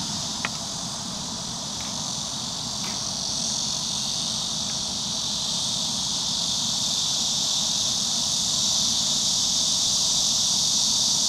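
Insects chirring outdoors in a steady, high-pitched drone that grows slightly louder, over a low background rumble, with a faint click about half a second in.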